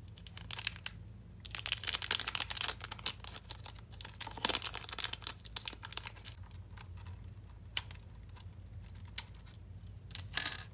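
Plastic packaging crinkling and rustling in bursts while being handled, busiest from about one and a half to three seconds in, with scattered light clicks and a brief rustle near the end.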